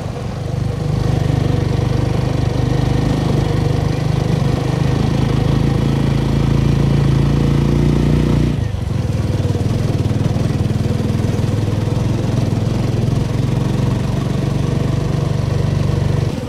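Motorcycle engine running steadily while riding. About halfway through the engine note drops a little and then holds steady again.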